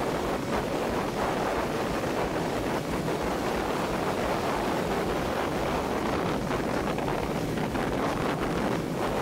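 Steady wind rush over the microphone of a bow-mounted camera as a small motorboat runs across calm water, with water rushing past the hull.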